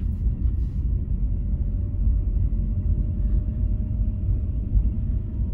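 Interior road noise of a car being driven: a steady low rumble from the engine and tyres on the road, with a faint steady hum above it.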